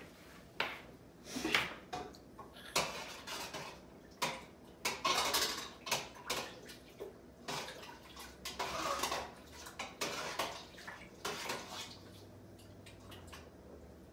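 Metal spoon and cooking pot clattering at the stove: a run of irregular clinks, knocks and short scrapes of metal on metal, dying away about two seconds before the end.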